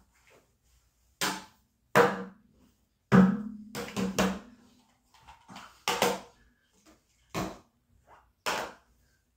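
Small objects (a glasses case, a laptop, a computer mouse, a plastic drink bottle) set down one after another on a solid wooden tabletop: about eight separate knocks and clunks, a few of them ringing briefly.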